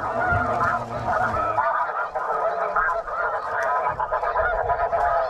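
A large flock of snow geese calling, with many overlapping calls forming a dense, continuous chorus.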